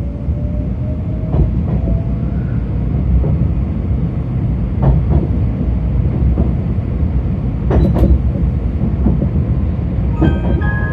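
Inside a JR West 273 series limited express train running along the line: a steady low rumble, with occasional sharp knocks from the wheels over rail joints and a faint rising whine in the first two seconds. Near the end the onboard announcement chime begins its bell-like melody.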